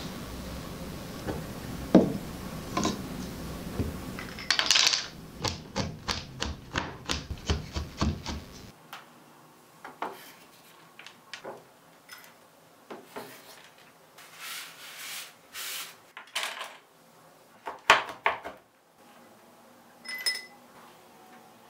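Kitchen knife chopping chocolate on a wooden cutting board: a run of quick chops at about three a second, then scattered knocks and scraping. Near the end, a short ringing clink as chopped white chocolate is tipped off the knife into a glass bowl.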